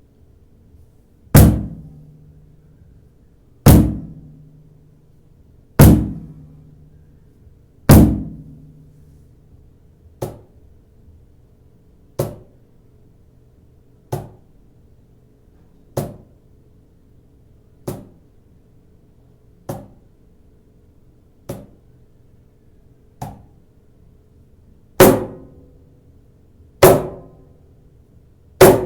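Clapbox Cajembe cajon with an oak front plate and snare wires, struck by hand one stroke at a time about every two seconds. There are four loud, deep bass strokes with a low ring, then eight lighter, higher strokes, then loud strikes again near the end.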